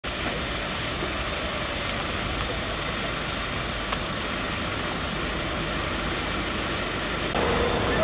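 Steady motor-vehicle noise: an engine and road noise running evenly without pauses. About seven seconds in the sound changes, with louder mid-pitched sounds joining in.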